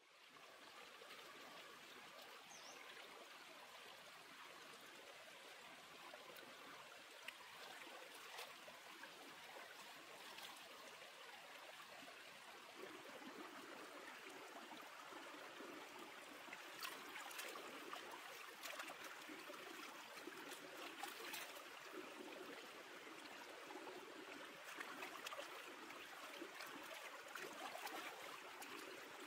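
Shallow stream running over rocks: a faint, steady rush and trickle of water, with a few short sharp clicks and splashes in the second half as a hand works in the water.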